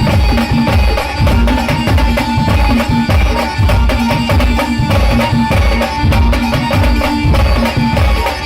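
Band music in a folk pawari-style tune: a held, repeating melody over heavy, driving drum beats, about two a second.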